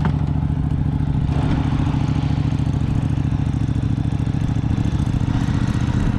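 A motor running steadily at one low, unchanging pitch.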